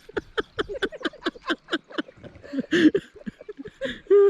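A dog whining in a rapid run of short, high cries, about five a second, ending in a longer held whine.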